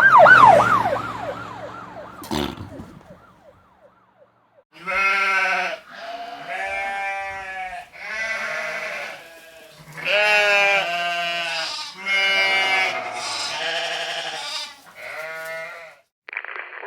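A siren sound effect, its pitch swooping up and down several times a second, fades out over the first few seconds, with a single click about two and a half seconds in. From about five seconds on come about seven wavering, sheep-like bleats, one after another.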